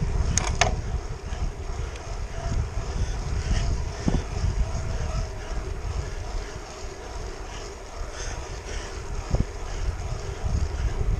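Wind rumbling on the microphone of a bicycle-mounted action camera, with wet-road noise from a road bike rolling along in the rain. Two sharp clicks sound about half a second in, and a single knock comes late on.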